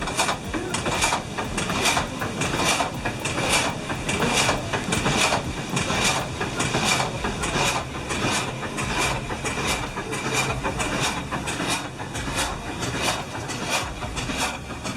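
Water-powered frame saw running, its long vertical blade stroking up and down through a log in a steady rhythmic beat of a little over two strokes a second.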